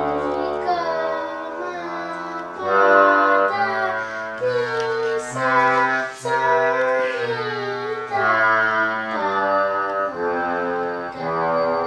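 Yamaha PSR-I500 portable keyboard being played: a melody of held notes over chords and a low bass line, the notes changing every half-second or so.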